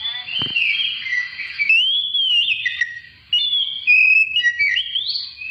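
An Oriental magpie-robin (kacer) sings a loud, varied run of whistled phrases that glide up and down, with a short break about three seconds in.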